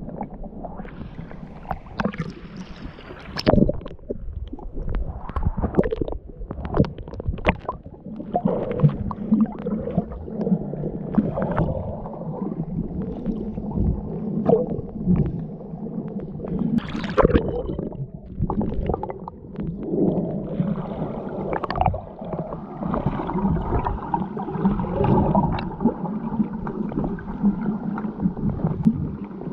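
Water gurgling and sloshing around a snorkeller's camera, with irregular knocks and pops throughout.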